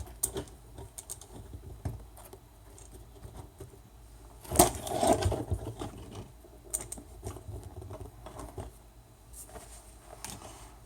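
Scattered small clicks and rustles of wires and small parts being handled on a bench, with one louder knock and clatter about four and a half seconds in.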